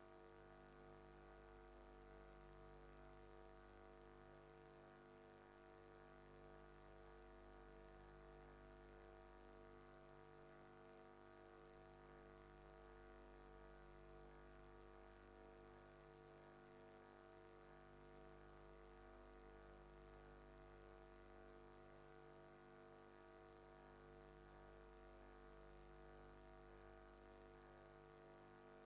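Near silence: a faint, steady electrical hum with a thin high whine above it.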